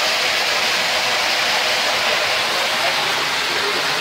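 Steady sound of water falling and splashing between granite boulders at a waterfall.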